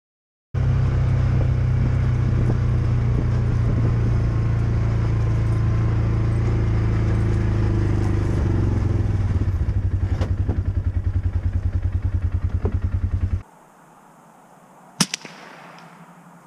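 A loud, steady low drone with a rapid pulsing in its last few seconds, cutting off abruptly. Then, after a short quiet stretch, a single shot from a suppressed .223 Ruger American bolt-action rifle firing supersonic (not subsonic) ammunition, with a smaller sharp sound just after it.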